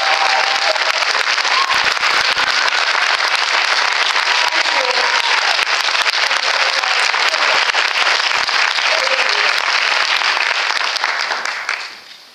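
A large audience applauding, dense clapping with a few voices cheering, dying away about a second before the end.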